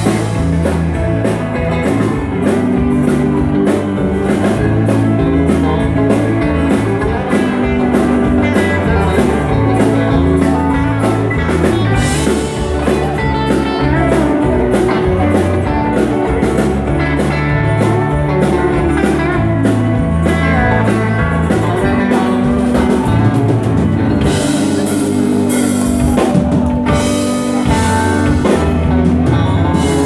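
Live band playing dance music on guitars and a drum kit, with a steady beat.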